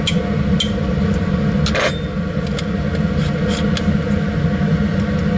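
Laminar flow cabinet's blower running with a steady drone and hum. Light clicks and clinks sound over it now and then as a small glass culture jar and metal forceps are handled, with a longer scrape just before 2 s.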